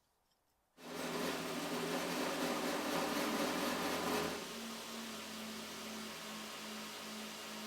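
A motor-driven machine starts up suddenly about a second in and runs steadily with a whooshing hum, settling slightly lower in level with a faint pulsing tone about four seconds in.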